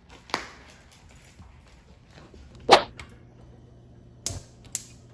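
A single sharp knock, then a gas hob's spark igniter clicking about twice a second near the end as the burner knob is held turned to light the burner under a frying pan.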